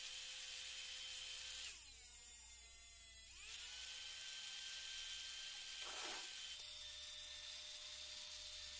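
Small high-speed DC motor spinning a second DC motor as a generator, giving a faint steady whine; its pitch drops about two seconds in and climbs back a second and a half later. A short rustle about six seconds in.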